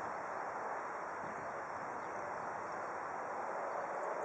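Steady, even outdoor noise, most likely wind on the microphone, with no distinct event.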